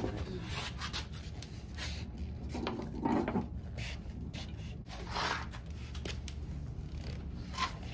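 A few short rustles and scrapes as a cloth rag and a metal solvent can are handled, with a light click near the end, over a steady low hum.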